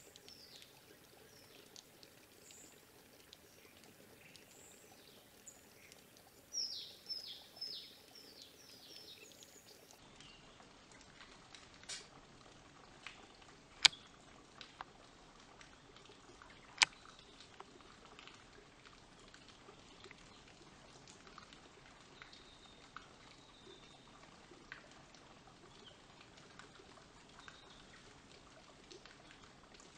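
Water trickling and dripping steadily, with a bird singing a run of about seven quick descending whistles some seven seconds in. Later come a few sharp clicks, the loudest about fourteen and seventeen seconds in.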